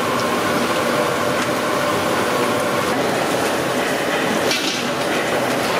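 Fish pieces deep-frying in a large iron kadai of hot oil, a steady sizzle and bubbling, with a short burst of sharper noise about four and a half seconds in as the slotted skimmer scoops the fried pieces out.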